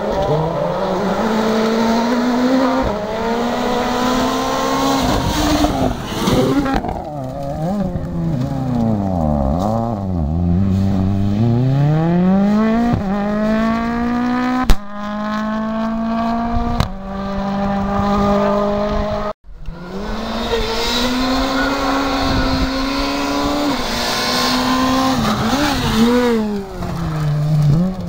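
Rally car engines at hard throttle on a gravel stage: the pitch climbs through the gears and falls away on lifts and downshifts, again and again, with gravel noise. There is a sharp crack about halfway through.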